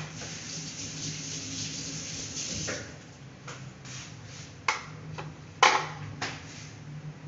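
Kitchen clatter at the stove: a hiss for about three seconds, then three sharp clinks of utensils, the loudest about five and a half seconds in, over a steady low hum.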